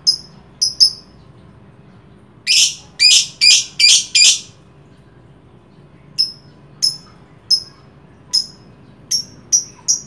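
Lovebird calling with shrill, sharp chirps: a few single chirps, then a run of five louder, harsher calls about two and a half seconds in, then single chirps spaced roughly half a second to a second apart.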